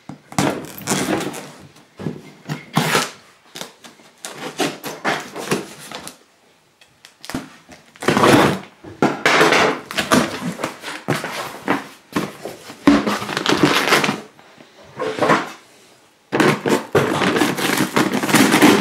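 A large cardboard box being opened by hand, with the cardboard scraping and the flaps pulled open in irregular bursts and two short pauses. Near the end a knife slits the brown paper sack inside, and the paper rustles.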